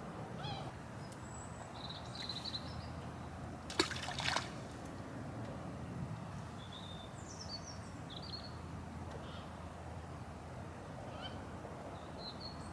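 A short splash about four seconds in as tackle from a fishing pole drops into the water, setting off rings of ripples at the pole tip. Birds give short high calls a few times over a steady outdoor background.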